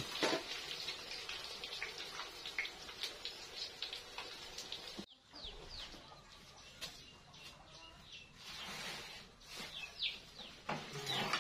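Tempe frying in hot oil in a wok, a steady sizzle with many small crackles. After an abrupt cut about five seconds in, birds chirping with short falling calls.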